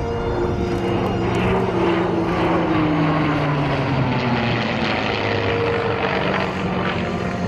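A P-51 Mustang and an F-15E Strike Eagle flying past together in formation: a propeller engine's drone mixed with jet noise, the pitch falling steadily as they pass, loudest about two to three seconds in.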